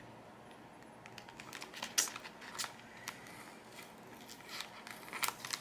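Planner sticker sheets and a round sticker being handled and peeled: light crinkling and crackling of paper and plastic, with a few sharper clicks about two seconds in and again near the end.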